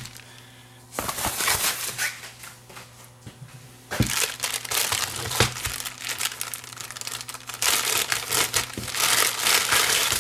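Wrapping of a mailed kit package crinkling and crumpling as it is opened and handled, starting about a second in, easing off briefly, then busier with a few sharp knocks from about four seconds in.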